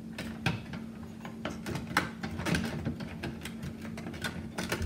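Irregular small clicks and rattles of a metal light fixture as the little knob holding the wall sconce together is turned off its screw by hand, over a steady low hum.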